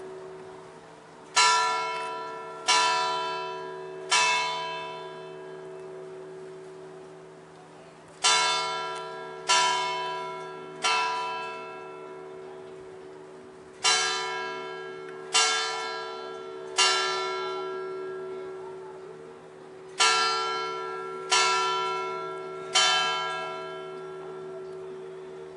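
Church tower bell struck in groups of three strokes about a second and a half apart, four groups with pauses of several seconds between them. Each stroke rings on and fades slowly over a steady low hum.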